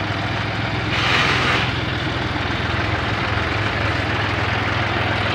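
John Deere tractor's diesel engine running steadily at low revs, with a short burst of hiss about a second in.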